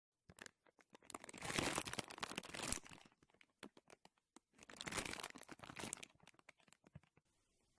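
Slime being squeezed and pressed by hand, giving dense crackling and popping clicks in two main bursts, the first about a second in and the second about five seconds in, with scattered pops between.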